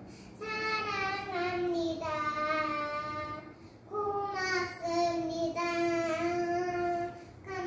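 A young girl singing a children's song unaccompanied: two long phrases of held notes that step down in pitch, with a short breath between them.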